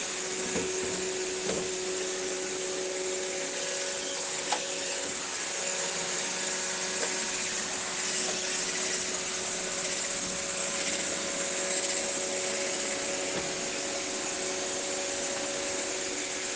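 Steady white noise for lulling a baby to sleep: an even hiss with a couple of steady humming tones, like a running appliance, and a few faint clicks in the first few seconds.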